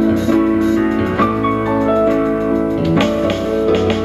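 Instrumental fill between sung phrases of a slow ballad: keyboard playing held chords with a melody line moving over them.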